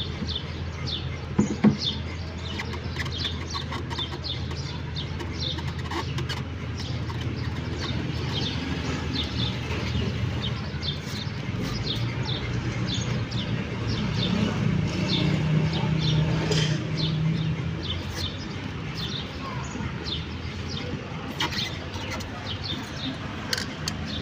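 Small birds chirping over and over, short high chirps throughout, over a steady low hum that swells into a louder low drone for a few seconds past the middle.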